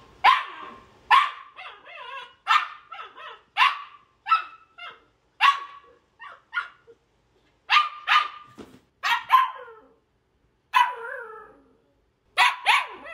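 Samoyed puppy barking over and over in short, high-pitched barks with a few brief pauses: a crated puppy's barking tantrum.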